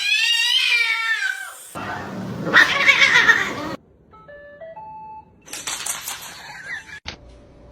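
A cat yowling in one long, drawn-out meow that bends in pitch, followed by a couple of seconds of louder mixed noise.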